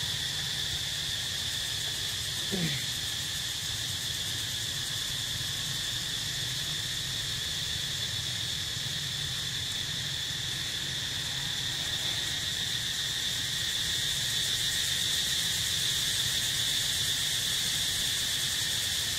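Steady high-pitched insect drone over a low steady hum, with one short falling sound about two and a half seconds in.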